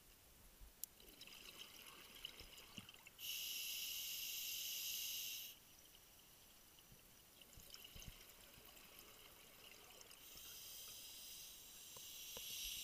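Scuba diver breathing underwater through a regulator: a steady hiss of the inhale about three seconds in, lasting a couple of seconds, with crackling exhaled bubbles between breaths and a fainter inhale starting near the end.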